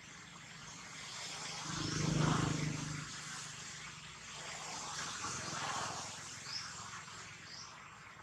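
Outdoor ambience with a steady high hiss, through which a vehicle engine hums past, swelling about two seconds in and fading, then a softer second swell. Two short high chirps sound near the end.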